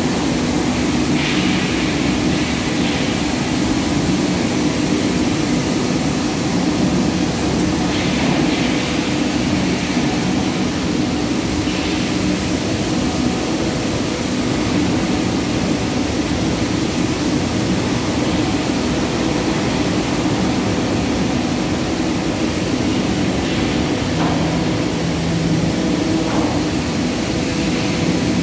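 Palm oil mill machinery running: a loud, steady drone with a constant low hum, with a few faint brief higher hisses.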